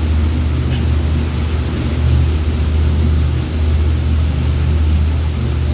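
Motorboat engine running steadily with a low drone, over the hiss of water churning in its wake.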